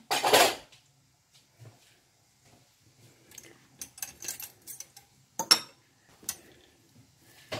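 Stainless-steel cookware and utensils being handled: a loud clatter right at the start, then light clinks and two sharp metal clacks as a slotted spoon and fork are taken from a utensil holder.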